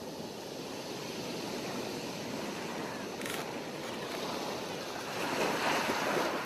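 Ocean surf: a steady wash of waves, with one wave surging louder about five seconds in.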